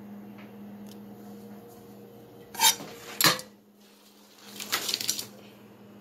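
Short metallic clinks and clatter of hard objects being handled, like dishes or metal utensils knocking together: two sharp knocks about two and a half and three seconds in, then a longer rattle near five seconds, over a low steady hum.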